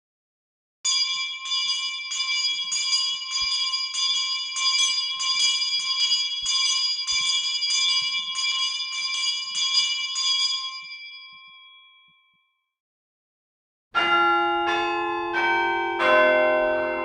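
School bell ringing with repeated strokes, about three a second, for about ten seconds, then dying away. After a short silence, a chime of bell notes at changing pitches begins near the end.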